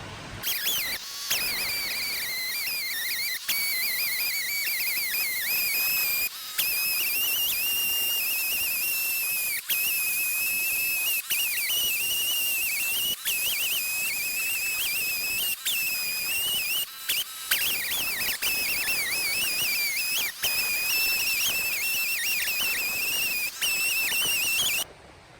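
Chainsaw running in an Alaskan mill, ripping a log lengthwise into a fence board: a high, wavering whine that rises and dips slightly with the load, cut off abruptly by several short breaks.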